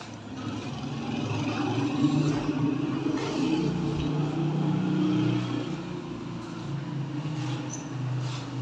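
Low, steady engine drone that swells over the first couple of seconds and eases off slightly later on.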